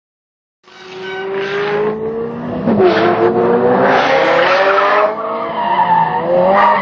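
Ferrari 308 GTS's V8 engine revving hard, its pitch climbing, with tyres squealing and skidding on asphalt as the car slides sideways. The sound begins about half a second in.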